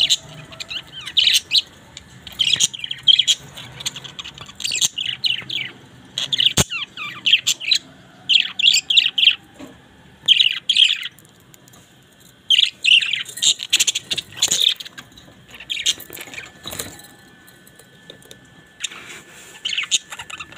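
Pet parrots chirping and chattering in short bursts of quick, high calls, with brief lulls. A single sharp click comes about six and a half seconds in.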